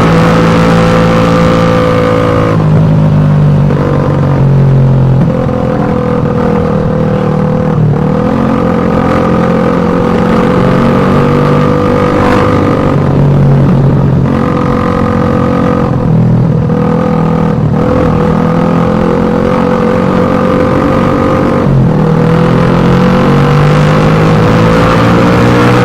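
Suzuki Satria FU 150's single-cylinder four-stroke engine running loudly through its exhaust, its pitch rising and falling a little with the throttle and briefly dropping several times.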